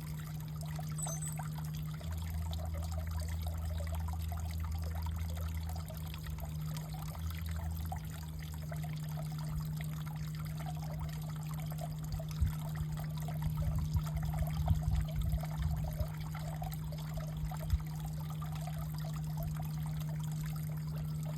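Water trickling and dribbling, like a small stream, over a steady low hum, with a few soft low thumps about two-thirds of the way through.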